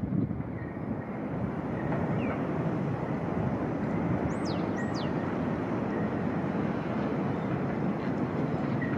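New York City subway train approaching around a curve on an elevated steel structure: a steady rumble that grows a little louder after the first second. About halfway through come two brief high squeals that fall in pitch.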